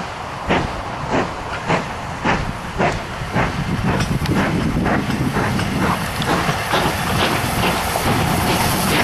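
Two-cylinder LMS Stanier 8F 2-8-0 steam locomotive working a train, its exhaust chuffing in an even beat of just under two a second. The beats grow louder and merge into a rising hiss and rumble as the engine draws close.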